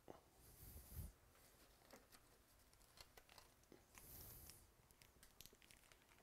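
Near silence with faint rustling and a few light clicks of something being handled, a soft swish about a second in and again about four seconds in.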